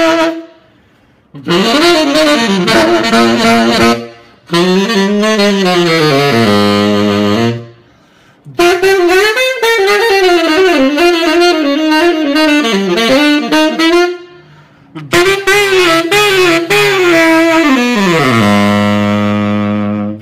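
Tenor saxophone played through a Berg Larsen 110/1 mouthpiece, in jazz phrases with short pauses for breath between them; the last phrase slides down to a long low held note.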